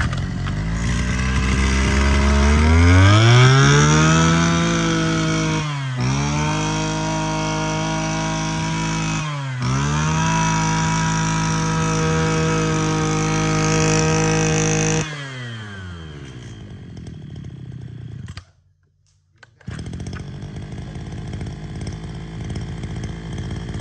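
Robin NB281 28cc two-stroke brush cutter engine revved up from idle and held at high revs, eased off briefly twice, then dropped back to idle. It cuts out for about a second near the end and resumes idling. The engine revs up very quickly, which the seller puts down to it being original and unmodified.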